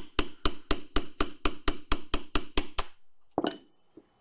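Small hammer tapping a pin punch in rapid, even strokes, about four a second, driving out the ejector pin of a small Martini rifle action. The tapping stops about three seconds in, with one more strike shortly after.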